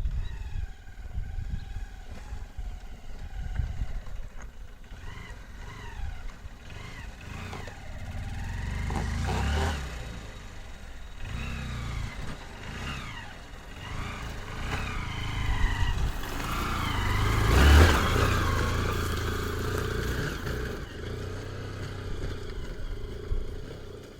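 Motorcycle on the move, its engine note rising and falling, over heavy low wind rumble on the microphone; it gets louder in a surge about three-quarters of the way through.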